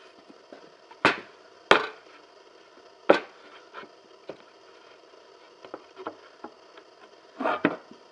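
Wooden boards knocking together as a bottom board is set into the rabbet of a box side: three sharp knocks in the first three seconds, a few lighter taps, then a quick double knock near the end.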